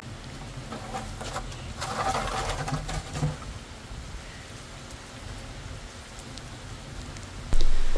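Steady rain falling on wet ground, with a few knocks and rustles in the first three seconds as a plastic bucket is handled. The sound gets louder suddenly near the end.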